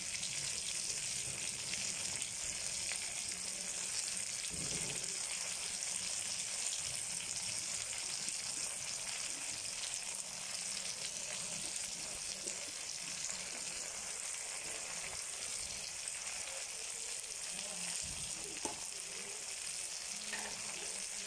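Potato slices and green chillies frying in oil in a wok: a steady sizzling hiss with small pops.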